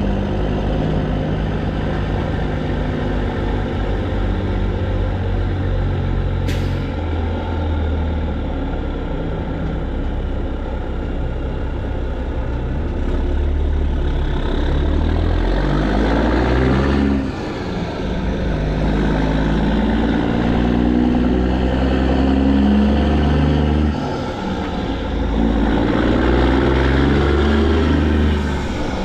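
PACCAR MX13 inline-six diesel in a semi truck, emissions-deleted and straight-piped, running under load. Its pitch rises and falls as it works through the gears, with short breaks in the sound a little past halfway and again near the end as it shifts.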